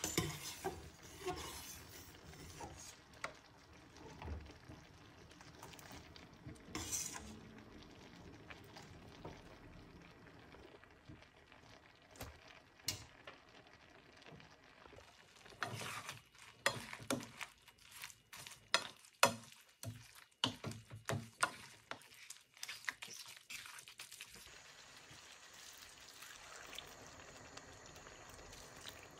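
Tomato sauce simmering and sizzling in a wide metal frying pan, with occasional clinks of metal utensils. From about halfway, a dense run of sharp clacks and scrapes as metal tongs lift cooked linguine into the pan and toss it in the sauce.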